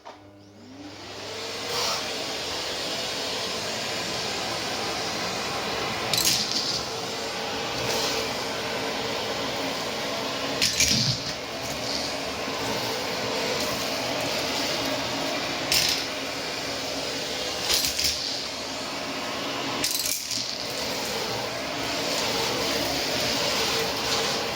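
Vacuum cleaner motor spinning up over about two seconds, then running steadily with a constant whine, broken by brief louder rattles every few seconds as the nozzle works a floor mat.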